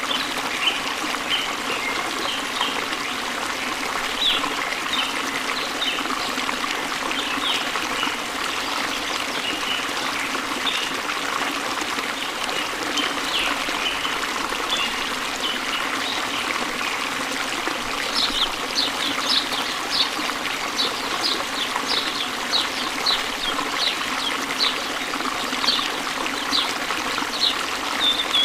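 Steady trickling or running water, with many short high chirps over it that become a regular series, about one and a half a second, from about two-thirds of the way through.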